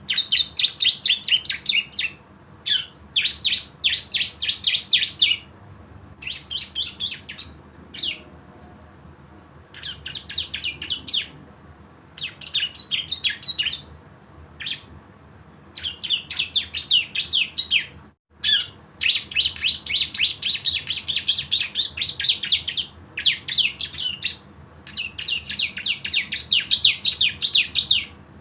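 Cisem, a ciblek-type songbird, singing its rapid machine-gun 'ngebren' trill in repeated bursts of one to three seconds with short pauses between.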